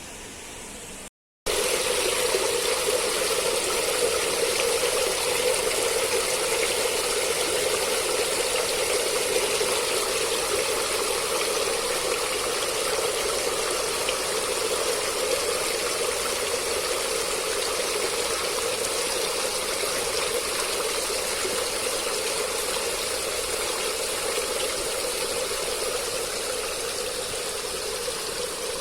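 Stream water flowing steadily in a continuous rush. It breaks off for a moment about a second in, then comes back louder.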